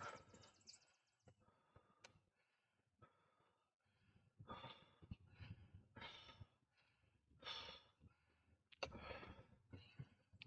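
Heavy huffing and puffing of a cyclist pedalling uphill, a breath about every second and a half, from the effort of the climb.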